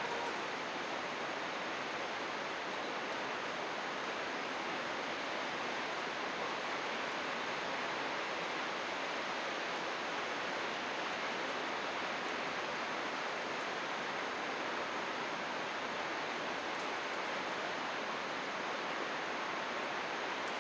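Steady, even rush of flowing water from a mountain stream or waterfall, with no change in level.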